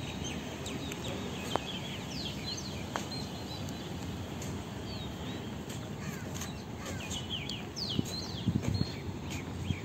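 Small birds chirping over and over, short quick notes, over a steady low background rumble, with a few dull thumps near the end.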